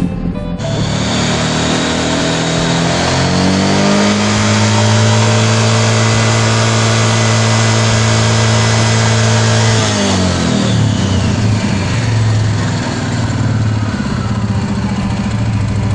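Suzuki King Quad 750AXi ATV's single-cylinder engine revving, with its uncovered CVT belt and pulleys spinning. The revs climb over about three seconds and hold high for about six. Then they drop back and run lower with small blips of throttle.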